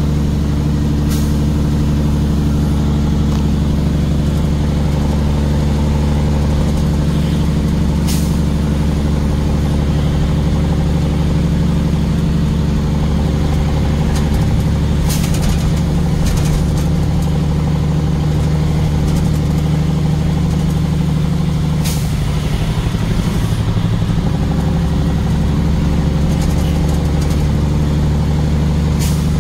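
Vehicle engine running steadily on the move, its note shifting briefly near the end, with a few short sharp knocks or rattles every several seconds.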